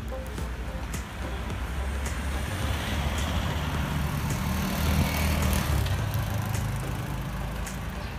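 A motor vehicle driving past on the road, its engine rumble and tyre noise swelling to loudest about five seconds in and then fading.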